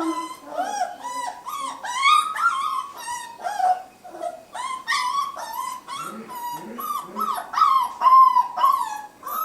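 Puppy crying and yelping in a rapid run of short high cries, several a second without a break, while held on her back and struggling: distress at being restrained.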